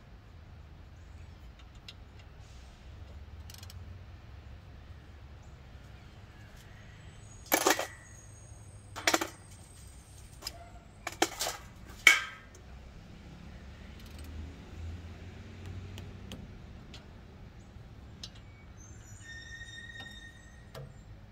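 Wrench and steel brake parts clanking: about five sharp metal clanks between roughly seven and twelve seconds in, the first with a brief high ring, while a rear brake caliper is being bolted up over its rotor.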